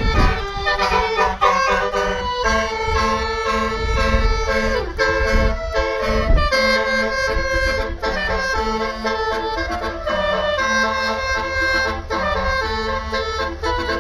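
Bus telolet horn, a set of musical air horns, playing a rhythmic multi-note tune over the low rumble of the bus.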